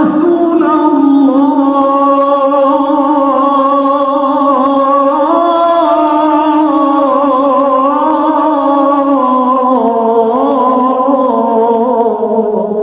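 A single voice singing an Islamic devotional salawat chant in Arabic, slow and melismatic, with long held notes that waver and turn in pitch.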